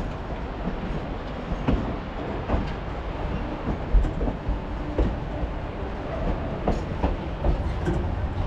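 Durango & Silverton narrow-gauge train rolling along the track: a steady rumble with irregular clacks and knocks from the wheels and the rocking car.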